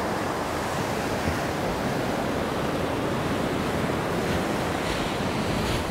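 Ocean surf breaking and washing up the beach: a steady rushing noise.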